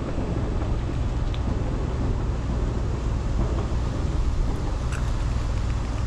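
Wind buffeting the microphone over a steady low motor hum. A faint short click sounds about five seconds in.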